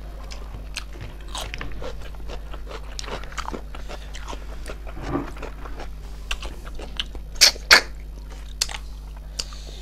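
Close-up eating of snail curry: chewing with frequent small crunches and clicks, and two louder sharp clicks about seven and a half seconds in.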